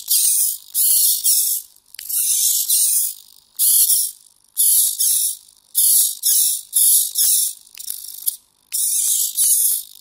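Small blue hobby servo motors in a pan-tilt camera cradle whirring in short high-pitched bursts, roughly one a second, as the joystick drives them back and forth. The harsh noise comes from a servo that the owner suspects has a problem.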